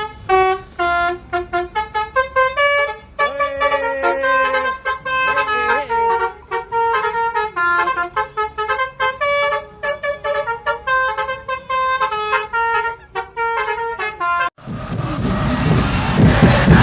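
Indonesian telolet bus horn of the basuri type playing a fast melody of short, staccato musical notes. About fourteen and a half seconds in it cuts off abruptly and a loud crowd-like roar takes over.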